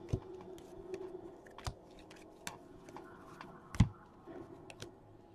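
Stack of glossy Panini Donruss soccer trading cards being flipped through by hand: soft card-on-card slides with scattered light clicks and snaps, the loudest a little before four seconds in.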